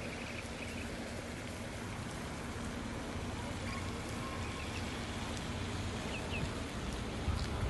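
Steady outdoor rushing noise with a few faint, short, high chirps from birds scattered through it.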